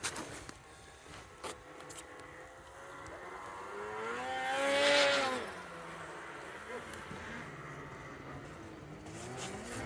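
A snowmobile engine approaching, rising in pitch and loudness to a peak about five seconds in, then falling in pitch and fading as it passes by. A few sharp clicks come in the first two seconds.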